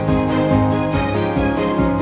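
Background instrumental music: sustained pitched tones over a steady pulse of about four beats a second.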